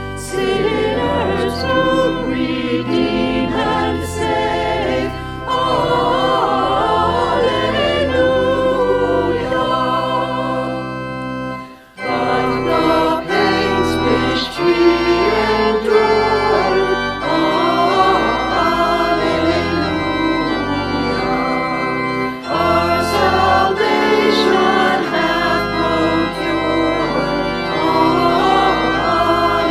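Church organ music with voices singing. The sound drops out briefly about twelve seconds in, then resumes.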